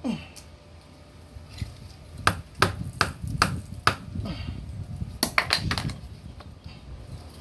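Small hammer tapping a plug into a tubeless tyre puncture: five sharp taps about half a second apart, then a quicker cluster of taps.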